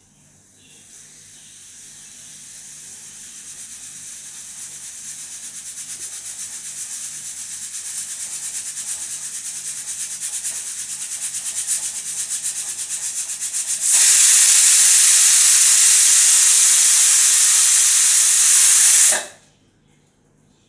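Stovetop pressure cooker on a gas burner letting off a whistle: steam hisses and flutters under the weight, growing steadily louder for about thirteen seconds, then blasts out in a loud full whistle for about five seconds and cuts off suddenly. Each such whistle marks the cooker reaching full pressure and venting, and is counted to time the cooking.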